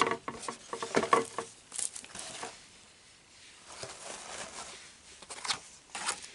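Paper packaging rustling and crinkling in short, irregular bursts as items are handled, with scattered light clicks.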